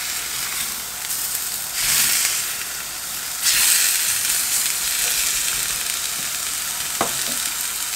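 Skirt steaks sizzling in a hot ridged cast-iron grill pan. The sizzle flares up twice, about two seconds in and again near the middle, as the steaks are turned over with tongs onto their unseared side. A short click comes near the end.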